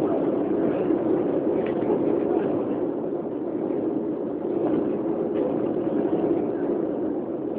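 Steady jet-engine and airflow noise inside the cabin of an Airbus airliner in flight, heard from a window seat beside the wing-mounted engine: an even low drone with a faint steady hum.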